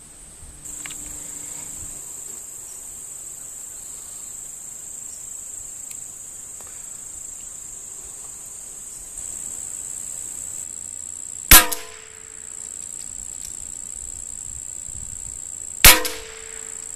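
Two .22 rimfire rifle shots about four seconds apart, each a sharp crack with a short ringing tail, over a steady high buzz of insects.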